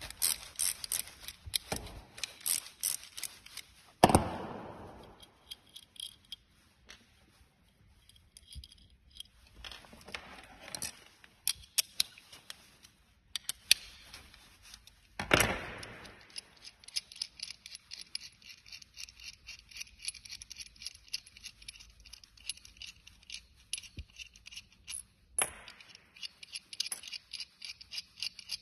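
Metal hand tools and pedal parts clinking and clicking during assembly work, with runs of fast small clicks and two sharp metallic knocks that ring briefly, about four seconds in and again about fifteen seconds in.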